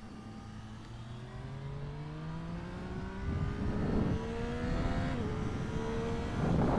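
Triumph Street Triple 765 RS's inline three-cylinder engine pulling hard under full throttle, its pitch climbing steadily, with a quick upshift about five seconds in. Wind rushes louder and louder over the microphone as speed builds.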